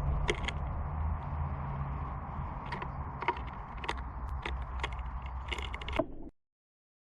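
Scattered sharp taps and clicks, likely small birds pecking and hopping at a feeder, over a steady low hum; the sound cuts off abruptly about six seconds in.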